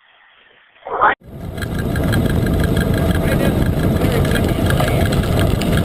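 Steady rumble of wind and rolling wheels from a bicycle riding downhill at speed, with a fast, even ticking through it; it starts suddenly about a second in, just after a short loud sound.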